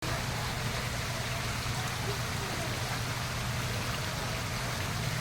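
Steady rushing noise of running or falling water, even throughout.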